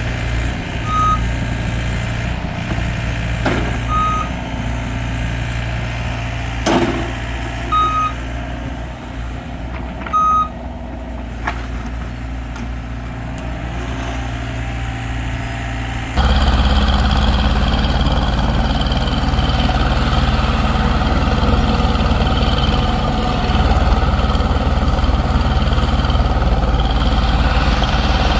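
Diesel heavy equipment running, with a backup alarm giving single short beeps every few seconds and a few sharp knocks. A little over halfway through, the sound cuts suddenly to a louder, fuller diesel engine running steadily.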